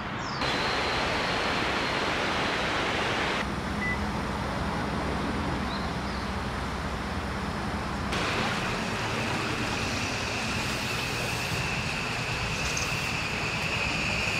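Steady outdoor rushing noise that changes in tone abruptly at several cuts. From about eight seconds in, a steady high whine joins it as a train runs close by toward the end.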